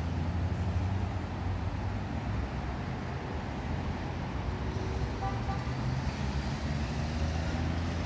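City street traffic: a steady low hum of passing road vehicles.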